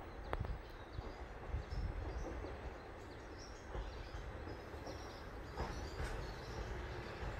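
Low rumble of a Nishikigawa Railway NT3000 diesel railcar approaching the station, with faint short high chirps over it.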